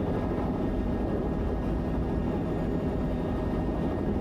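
Bell 505 helicopter's Safran Arrius 2R turboshaft and rotors running steadily during taxi, heard from inside the closed cabin as an even, low drone with a few steady tones.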